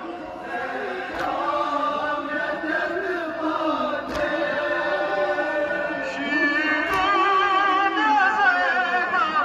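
Men chanting a Kashmiri noha mourning lament in a slow, wavering melody. The lead reciter's voice comes through a microphone and loudspeaker horns and grows louder and higher about six seconds in. A sharp beat sounds about every three seconds.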